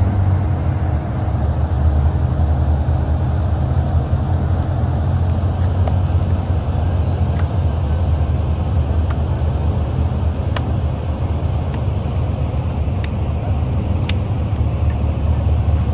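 A car's engine running steadily with a deep, even rumble. About half a dozen sharp clicks sound in the second half.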